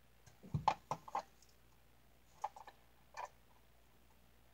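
Clicks and knocks of a circuit-board adapter being handled and pressed into a VVDI Prog programmer's socket: a quick cluster of clicks about half a second to a second in, then two more short clicks near two and a half and three seconds.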